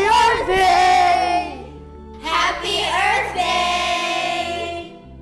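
A group of children calling out together in chorus, in two loud bursts about two seconds apart, over background music.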